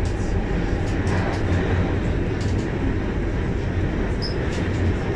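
Guangzhou Metro Line 6 linear-motor train running through a tunnel, heard from inside the passenger car as a steady, heavy rumble and rush of running noise. A brief high squeak comes about four seconds in.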